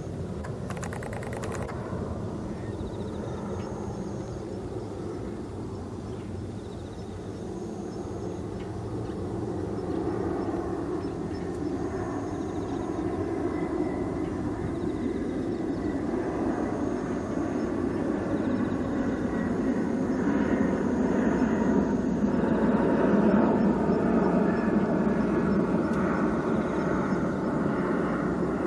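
Low engine rumble of a distant vehicle that slowly swells, loudest about three quarters of the way through and easing a little near the end. Faint short high notes recur every few seconds.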